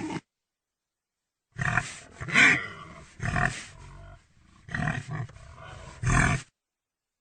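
A pig grunting: about five rough, harsh calls in a row, separated by short pauses.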